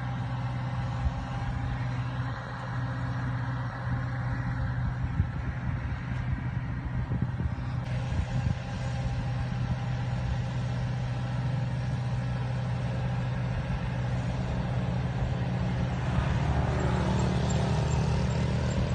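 Motor vehicle running steadily: a low engine hum over rumbling noise, growing a little louder near the end.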